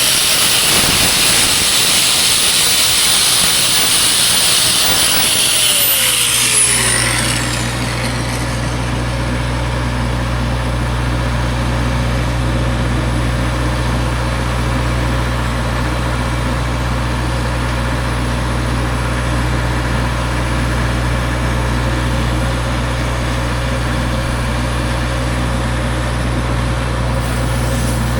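An angle grinder runs with a high-pitched grinding noise, then is switched off about seven seconds in, its pitch falling as it spins down. After that an engine idles steadily with a low hum.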